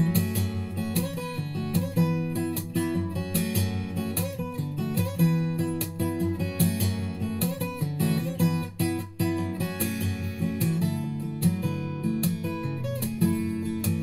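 Background music: acoustic guitar, plucked and strummed.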